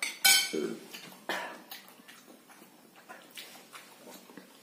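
A man gasping and puffing hard through his mouth, with a short groan, as he suffers the burn of ghost-pepper noodles. The loudest sound is just after the start, where his metal fork and spoon clink down on the plate.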